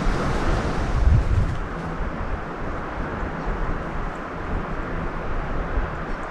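Wind buffeting the microphone over a steady rushing outdoor hiss, with the low rumbles strongest in the first second and a half before easing.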